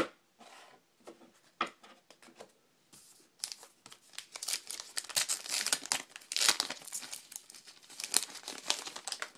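A trading card pack's wrapper being torn open and crinkled by hand. A few faint handling clicks come first, then about three seconds in a long stretch of crackling starts.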